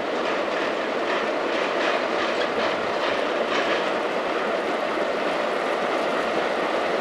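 Small narrow-gauge steam tank locomotive hauling a train of wagons: a steady rush of steam and running noise with faint exhaust chuffs about twice a second, fading out about halfway through.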